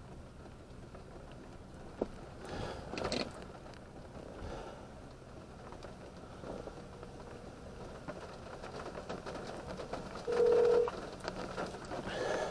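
Phone call to 911 connecting over a speakerphone: a faint steady ringing tone, then a short loud beep about ten seconds in. A few soft knocks and rustles come earlier.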